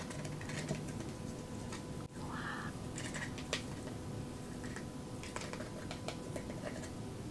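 Thin plastic sauce cups being squeezed over chicken nuggets: scattered light crackles and clicks of the plastic as the sauce is pressed out, over a faint steady hum.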